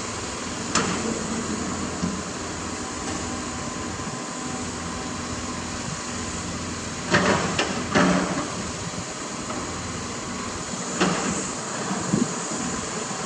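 Excavator diesel engine running steadily while a Doosan DX225LCA's steel bucket digs into blasted rock, with rocks knocking and scraping against the bucket: once about a second in, a loud pair around seven and eight seconds in, and a few more near the end.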